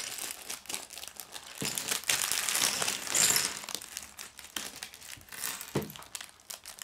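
Clear plastic LEGO parts bag crinkling as it is handled and shaken out, loudest a couple of seconds in, with a few light knocks of small plastic pieces dropping onto a wooden table.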